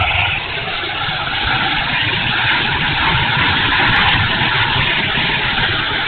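Electric ducted-fan motor of a 70 mm E-flite F-16 RC jet running in flight, heard from a camera mounted on the airframe: a steady loud rush with wind rumbling on the microphone, a little louder midway.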